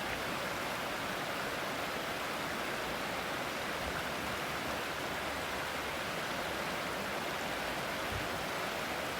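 Waterfall: falling water rushing in a steady, even noise.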